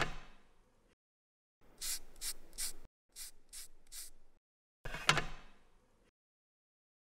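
A silicone pastry brush swishing egg wash onto the tops of baked pineapple cakes: six short, crisp strokes in two quick sets of three. A sharp knock at the start and another about five seconds in.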